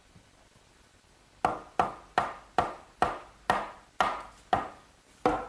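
Mallet blows knocking an oak post down onto glued rail tenons, seating the joints. After a quiet start, sharp wooden knocks begin about a second and a half in and repeat steadily, about two or three a second, each with a short ring.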